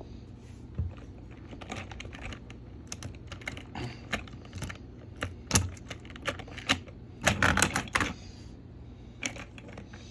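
Irregular clicks and clatter of plastic toy train pieces being handled, with a denser, louder run of clicks near the end.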